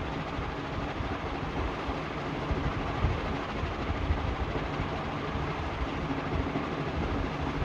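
CMC ceiling fan, rewound with a transplanted Bajaj Maxima stator, running steadily: the blades move air with a low, even whoosh over a faint motor hum.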